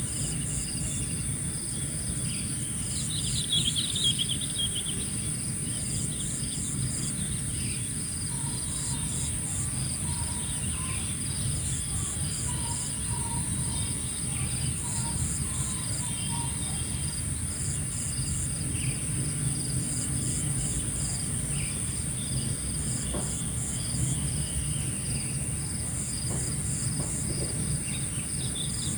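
Outdoor morning ambience of insects: a steady high-pitched insect drone, with a short group of three or four chirps repeating every few seconds. Scattered bird calls sound throughout, a brighter burst of chirping about three seconds in, over a low steady rumble.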